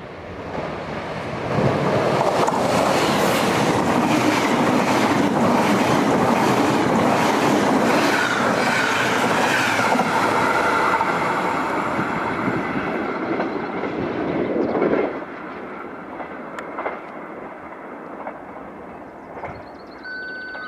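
Passenger train hauled by a red SBB Cargo electric locomotive passing through the station at speed: a loud rush of wheels on rail with rapid clickety-clack over the rail joints. It builds about a second and a half in and drops away suddenly around fifteen seconds in as the last coach clears, leaving a fading rumble.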